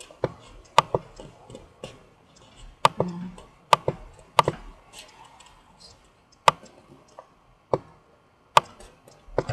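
A series of sharp, irregular clicks, about ten of them spread over several seconds, each a single crisp tick.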